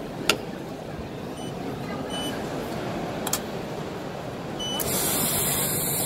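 A sharp click as a metal screen mold is set down in a lamination machine's chamber, a second click, and a few short high beeps. About five seconds in, a loud steady hiss of air starts.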